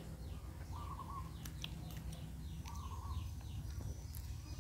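Birds calling: a short call repeated about every two seconds, with rows of quick falling chirps and a few faint clicks, over a steady low rumble.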